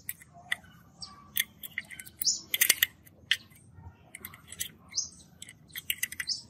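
Multimeter test probes tapping and scraping on the solder joints and parts of a TV power supply board: a quick, irregular series of sharp little clicks. A few short high chirps are heard among them.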